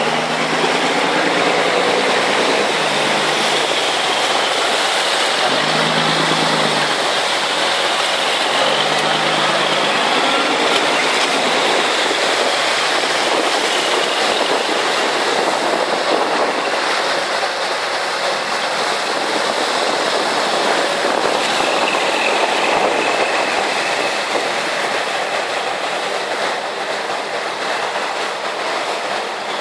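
Loud, steady rushing noise of a pilot boat underway close alongside a large ship: the boat's engines running, with water rushing past the hulls and wind on the microphone.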